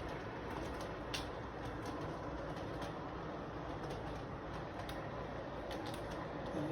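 A train running on its track: a steady rumble with a few light clicks, the sharpest about a second in.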